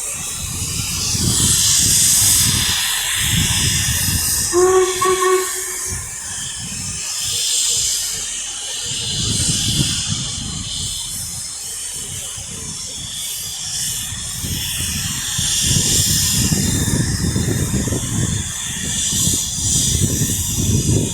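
Steam locomotive standing at a platform, hissing steam in uneven gusts over a low rumble, with a brief two-note hoot about five seconds in.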